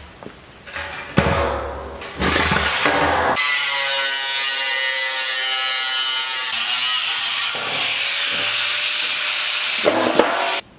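Angle grinder cutting through the steel wall of a 55-gallon drum: a few short bursts of grinding, then a long steady cut, a high motor whine over a harsh grinding hiss. It cuts off abruptly near the end.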